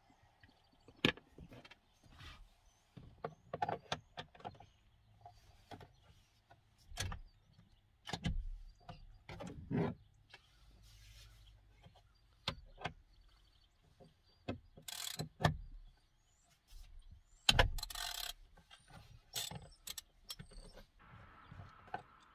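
Scattered clicks and knocks of hand tools taking out the second airbag retaining bolt behind a steering wheel, with two louder short bursts about fifteen and eighteen seconds in.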